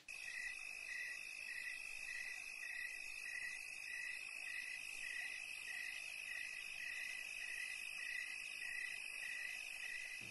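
Night-time insect chorus: a steady high trill with a chirp repeating about twice a second.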